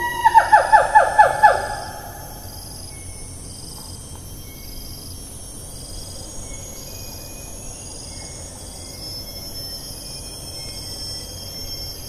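Siamang calling: a rapid run of about seven short, sharply falling notes in the first second and a half, ending the call. After it, rainforest insects keep up a high drone that swells and fades every few seconds, with faint bird notes.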